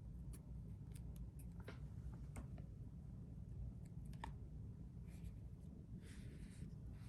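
Faint handling of trading cards: scattered light clicks and taps as the cards are moved one behind another, with a short sliding rustle about six seconds in.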